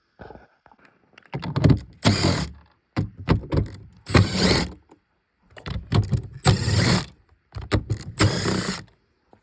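Plastic bolt caps on a battery-pack cover being pried and pulled off with pliers: a run of clicks and scraping, grating bursts, about half a dozen of them.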